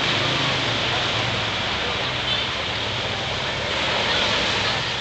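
Waves breaking and washing on a beach, a steady rushing surf, with a low engine hum running underneath.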